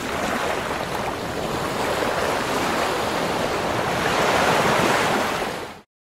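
A steady rushing noise, like surf or wind, that starts abruptly, swells a little toward the end and fades out quickly.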